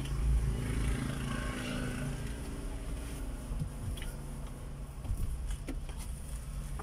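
Steady low rumble of a running vehicle, heard from inside its cab, with a few faint clicks.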